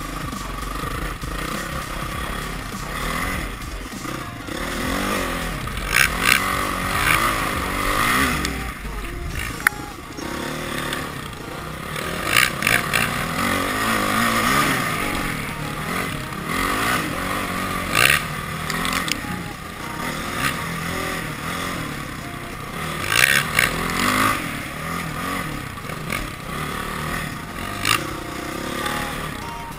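Honda CRF450R dirt bike's single-cylinder four-stroke engine revving up and down as the bike is ridden along a dirt trail. Wind rushes over the microphone in loud gusts, with rattles and knocks from the rough ground.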